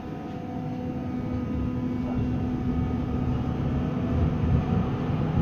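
TW6000 Stadtbahn light-rail car pulling away from a stop, heard from inside: the rumble of wheels and traction motors builds gradually as it gathers speed, with a steady hum.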